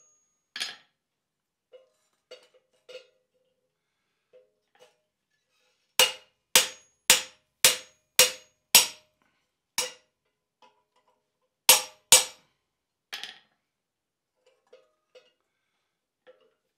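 Hand hammer striking a hot-work chisel held in a red-hot steel bar on an anvil, driving it through as the cut breaks through over a soft plate. Sharp ringing metal blows: a run of six at an even pace about six seconds in, then a few more spaced out, with light taps between.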